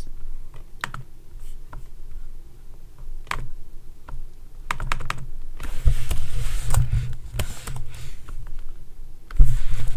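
Computer keyboard typing, with scattered key clicks. About six seconds in comes a stretch of louder rustling and low bumps, and a loud thump follows near the end.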